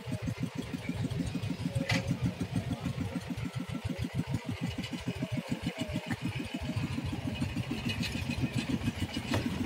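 Small fishing boat's engine running with a fast, even chug.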